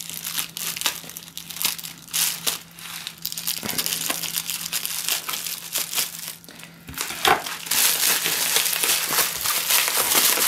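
Bubble wrap crinkling and rustling as it is cut with scissors and then pulled apart by hand: "rumply" plastic noises, a broken crackle that turns to a denser continuous rustle near the end.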